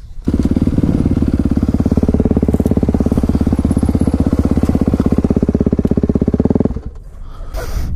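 Dirt bike engine idling steadily with a fast, even pulse, then stopping abruptly near the end.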